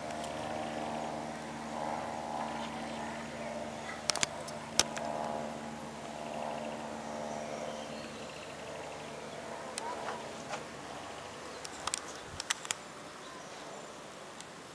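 Light aircraft flying overhead, its engine a steady drone that fades away about eight seconds in. A few sharp clicks cut in around the middle and again near the end.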